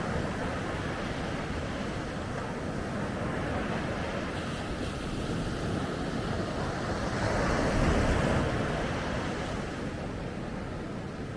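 Ocean waves breaking on a beach: a steady wash of surf, with one wave swelling to a louder break about eight seconds in and then receding.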